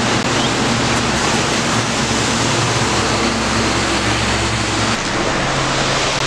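Steady loud rushing noise of road traffic with a low engine hum under it. The hum drops away about five seconds in.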